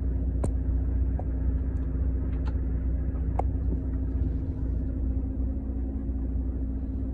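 Volvo truck's diesel engine idling while stationary: a steady low rumble with a steady hum over it, and a few faint clicks.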